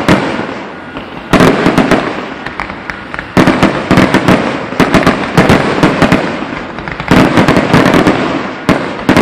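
Fireworks going off: four loud volleys of sharp bangs and rapid crackling, each fading away before the next begins.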